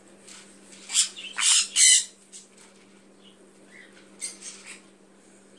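Parrotlets giving harsh squawks: three loud ones in quick succession about a second in, then a few fainter calls near the end.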